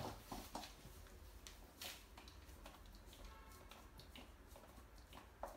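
Mostly quiet, with a few faint scattered clicks and ticks from a Dogo Argentino puppy chewing as it lies on newspaper.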